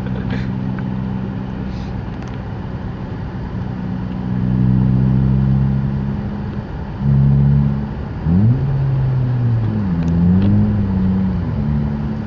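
Car engine heard from inside the cabin, running steadily and then revving up and down several times, its pitch swooping sharply up and back down about eight seconds in.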